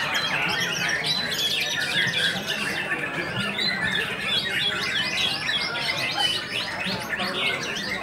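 White-rumped shama singing, quick varied chirps and warbles layered over a dense chorus of many other songbirds singing at once.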